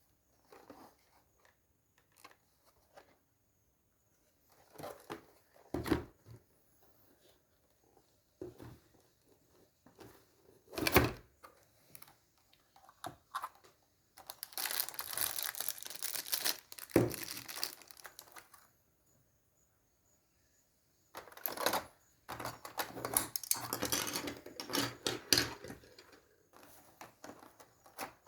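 Packaging of a shaver box being handled and opened: scattered clicks and knocks of cardboard and parts, one sharp knock near the middle, and two longer spells of crinkling and tearing packaging in the second half.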